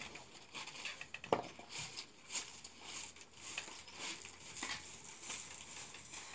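Faint rustling and scattered light clicks and taps in a small room, with one sharper click about a second in.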